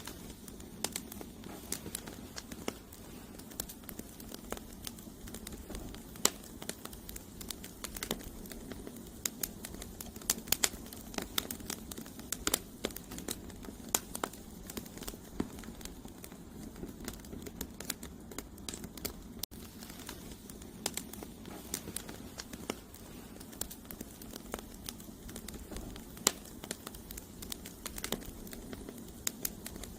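Campfire of burning firewood logs crackling and popping: many sharp, irregular snaps over a steady low rush of flame.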